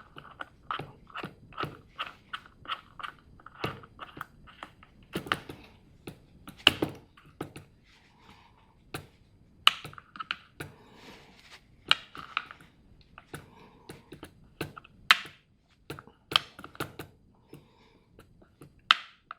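Clicks, knocks and clatter of plastic and metal parts as a small cordless chainsaw's chain and spring-loaded tensioner are worked on by hand. It opens with a fairly regular run of clicks, about three a second, then turns to scattered louder knocks.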